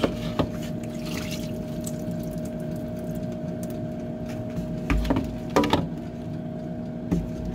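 Insignia air fryer running with a steady fan hum and rush of air. A few short knocks of a plastic-wrapped foam tray handled in a steel sink, near the start and about five seconds in.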